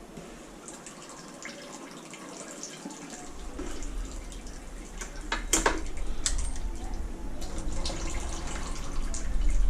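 Scattered clicks and knocks of metal as a partly stripped motorcycle engine is turned over and handled on a workbench, with one sharper knock near the middle. A low rumble comes in about three seconds in and grows louder.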